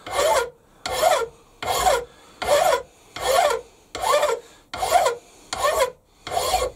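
Hand file stroking across the end face of a small Stuart S50 model steam engine cylinder casting held in a bench vise: about nine even rasping strokes, a bit under a second apart, with short quiet gaps for the return stroke. The file is dressing casting flashing off the cylinder's end.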